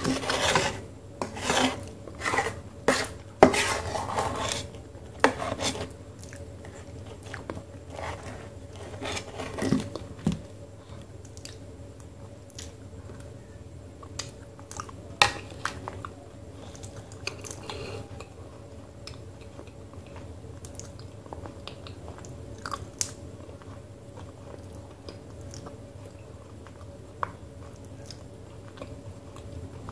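A steel spoon scraping and clinking in a steel bowl of thick multani mitti (clay) paste, with the wet mouth sounds of eating it. The scooping and eating sounds are dense for about the first ten seconds, then thin out to scattered soft clicks and smacks.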